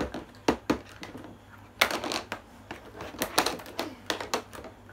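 Small plastic toy dishes from a Tupperware Mini set clicking and clattering on a table as cups are stacked, plates set down and a container lid worked: an irregular run of sharp clicks and taps.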